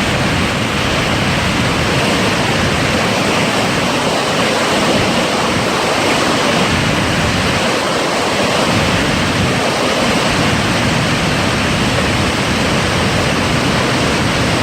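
Floodwater pouring over the Clementine Dam spillway (Rainbow Falls), a loud, steady rush of falling water.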